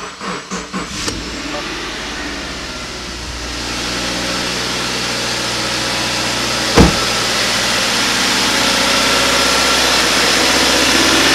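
2016 Subaru Crosstrek's 2.0-litre flat-four being started: the starter cranks briefly, the engine catches about a second in and settles into a steady idle that grows louder later on. This is the first start after an oil change, with the new oil filter still empty. One sharp thump about two-thirds of the way through.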